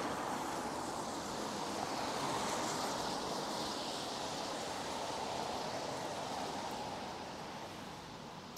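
Tyres hissing on a wet street as a car passes, a steady wash of noise that fades away near the end.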